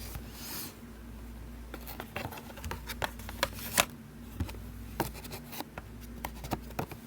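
Hand-handling noise: irregular small clicks, taps and scratchy rustles, starting about two seconds in, over a low steady hum.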